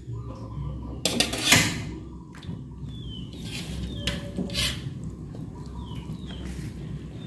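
Kitchen clatter: a few sharp clinks and knocks of utensils and cookware, the loudest about a second and a half in, over a low steady sizzle of frying. Short high chirps recur every second or so.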